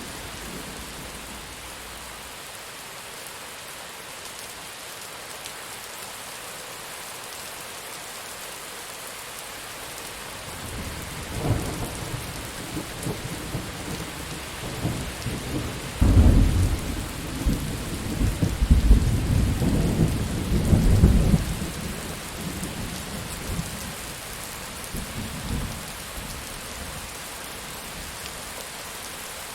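Steady heavy rain hissing, with a long roll of thunder that builds from about a third of the way in, rumbles loudest around the middle and dies away before the end.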